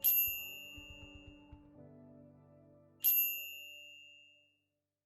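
Two bright bell-like chimes about three seconds apart, each struck sharply and ringing out, over soft background music that fades away.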